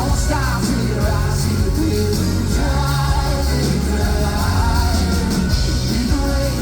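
Live pop-rock band music, loud and steady, in a passage without sung lyrics: a melodic lead line that bends in pitch over drums and bass.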